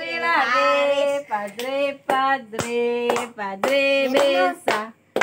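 Children's voices singing or chanting in unison, in short phrases on steady held notes with brief gaps between them, along with a few hand claps.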